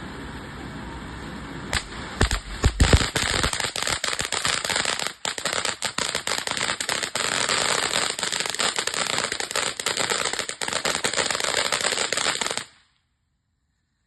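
A backyard firework going off: a few loud bangs about two seconds in, then a dense run of rapid crackling pops for about ten seconds that cuts off suddenly.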